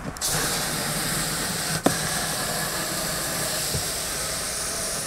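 Water jetting from a garden hose trigger nozzle into a plastic reservoir box: a steady rushing hiss, with one short click about two seconds in.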